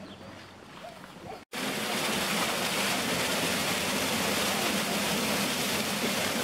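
Wallender Born cold-water geyser erupting: a loud, steady rush of spouting and splashing water that starts abruptly about a second and a half in, after a quieter stretch.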